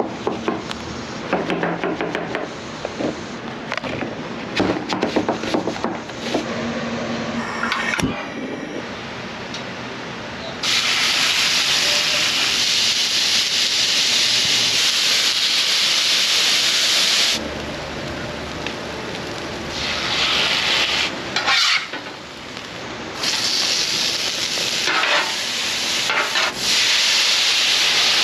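Knife chopping zucchini on a cutting board in a run of sharp clicks. About eleven seconds in, diced wild turkey starts to sizzle loudly on a hot flat-top griddle. The sizzle eases off, then comes back strongly for the last few seconds.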